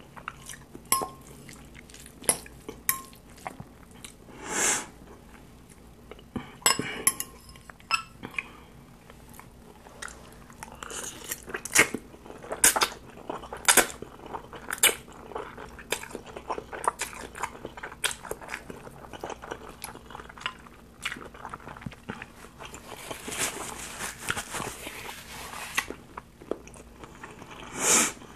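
A person slurping and chewing spicy instant noodles, heard close up: wet, clicky mouth sounds with several louder slurps, and a metal fork clinking against a glass bowl.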